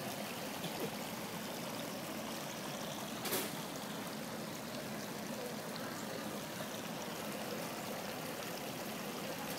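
Steady rush of running water in an ornamental fish pond, with one brief click about three seconds in.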